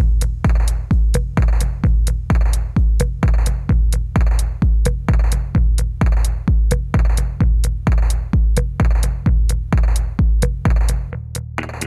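Electronic background music with a steady drum-machine beat, a little under two kicks a second, and a deep bass line. The kick and bass drop out near the end.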